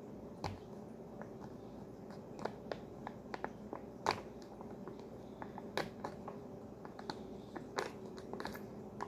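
A ration pouch being picked at and torn open by hand, its packaging crackling in irregular sharp crinkles and clicks, over a faint steady hum.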